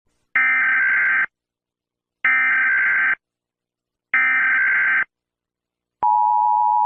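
Emergency Alert System tones: three short, identical screeching bursts of SAME data header about two seconds apart, then, near the end, the steady two-tone EAS attention signal begins.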